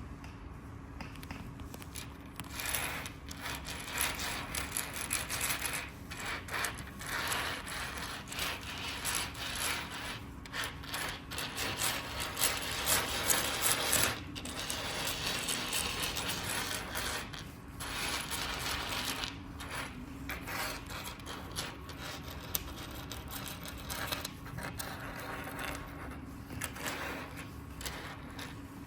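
Irregular clicking, ratcheting and rattling of small hard parts being handled, busiest in the first half and easing off with short pauses later.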